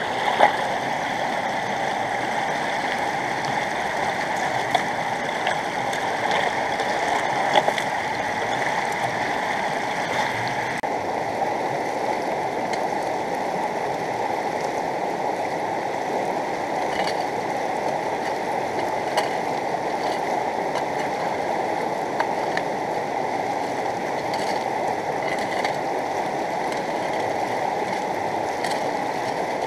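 Steady rushing of a fast rocky river, mixed with water running through a small electric highbanker sluice, broken by a few brief sharp knocks.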